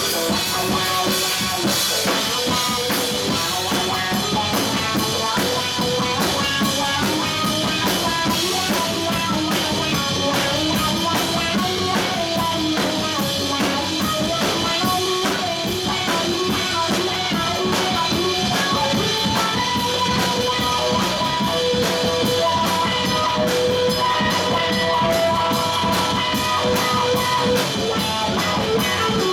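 Live rock band playing an instrumental passage: a drum kit keeps the beat under electric guitar and bass guitar, with sustained melody notes held over the groove.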